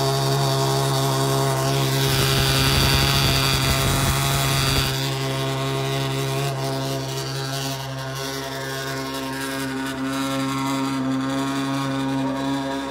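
Ferrari 812 Superfast's V12 running at a steady, loud high idle just after a cold start. A low rumble joins in about two seconds in and drops away about three seconds later.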